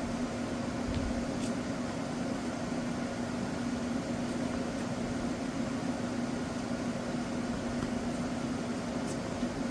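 Steady machine hum, a constant low drone over an even hiss, with a couple of faint clicks.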